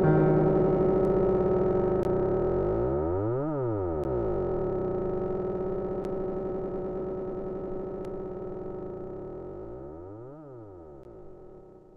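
Sustained synthesizer chord with a slow phaser-like sweep passing through it twice, fading out gradually until it is almost gone at the end.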